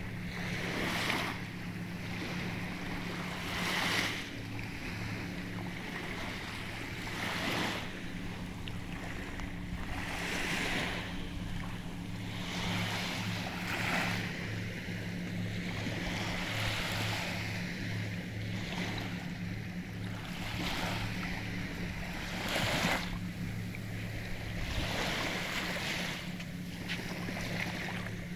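Small sea waves breaking and washing up on a sandy shore, a soft swell of surf about every three seconds, over a steady low hum.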